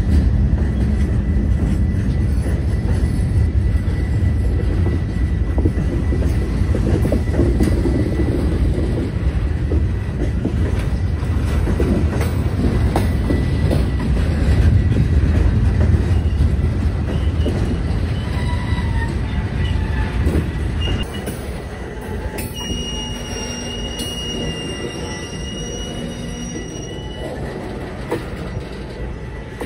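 Freight train cars rolling past: a steady low rumble of steel wheels on rail with scattered clicks. About two-thirds of the way through, a high steady wheel squeal sounds for about five seconds while the rumble eases.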